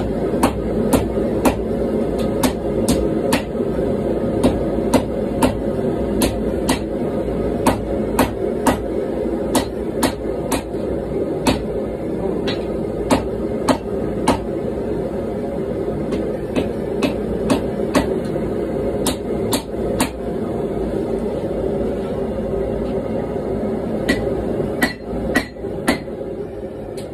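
Hand forging: a hammer strikes a red-hot billet on a steel anvil at about one to two blows a second. The blows pause for a few seconds near the end, then come in a quicker run. Under the blows is the steady rush of the running gas forge.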